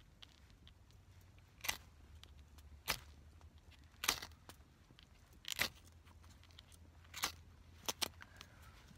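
Ferro-rod fire starter scraped hard, throwing sparks into lint tinder to light a fire. There are seven short, sharp rasps, about one every second and a half, and the last two come in quick succession.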